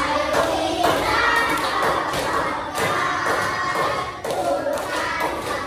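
A roomful of children's voices chanting or singing together, with repeated claps and thumps.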